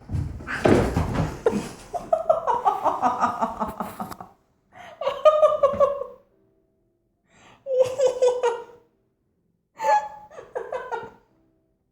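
A person laughing hard in four or five separate bursts, with gasping breaths, opening with a loud noisy outburst.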